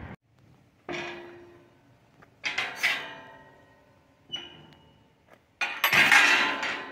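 Iron railings of a gate knocked and handled: four sharp metallic clanks, each with a brief ring, the loudest and longest rattle about six seconds in.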